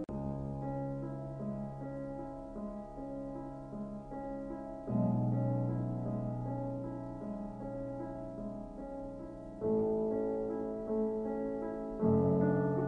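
Slow piano music with sustained chords, a new low chord struck every few seconds.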